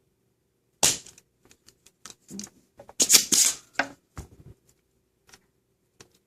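Spring-loaded desoldering pump (solder sucker) being cocked and fired to suck molten solder from the connector pin holes: a sharp snap about a second in, then a louder cluster of clicks and snaps around three seconds in and a few fainter clicks after.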